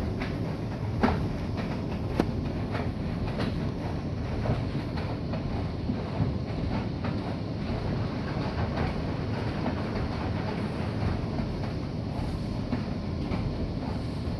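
Bosch i-Dos WGG154A10 front-loading washing machine running, a steady low rumble with scattered sharp clicks, the loudest about a second and about two seconds in.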